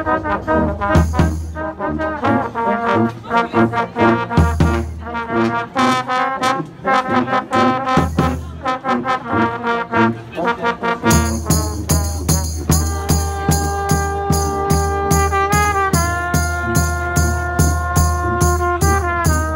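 Street brass band of sousaphone, saxophone, trombone and tenor horn with a bass drum, playing a lively tune. About halfway through, the drum settles into a steady even beat under long held brass chords.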